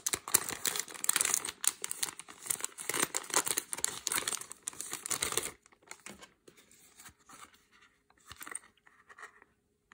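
Plastic packaging around a key-ring card being torn open and crinkled by hand, a dense crackling that stops about five and a half seconds in, followed by a few faint rustles as the pack is handled.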